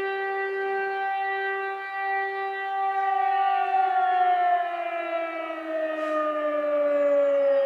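A long, steady siren-like tone with many overtones, holding one pitch at first and then sliding slowly and evenly lower through the second half.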